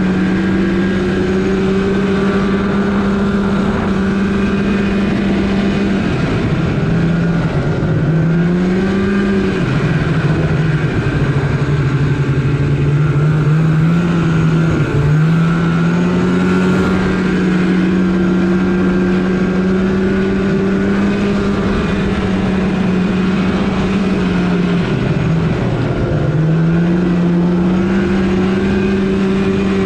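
Polaris RMK snowmobile engine running under way, holding a steady pitch that dips and climbs back several times as the throttle is eased and reapplied.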